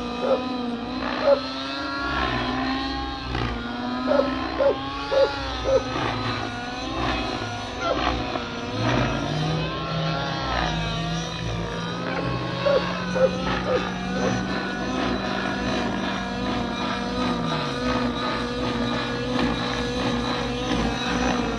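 Nitro glow engine of a radio-controlled helicopter flying overhead, its high whine wavering up and down in pitch as the load changes through the manoeuvres. A few short loud blips come in the first six seconds and again about thirteen seconds in. A second, lower steady drone runs from about nine to eighteen seconds in.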